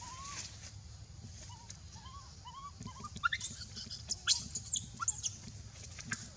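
Baby monkey calling: a few faint short squeaks at first, then a burst of loud, high-pitched squeals and screams about halfway through, over a low rumbling background noise.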